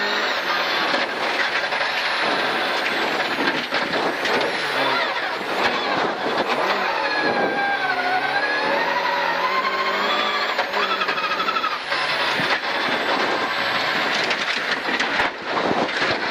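Rally car engine at high revs heard from inside the cabin, its pitch dropping around the middle of the stretch as the car slows and shifts down, then climbing again. Scattered knocks and rattles come from the rough gravel road.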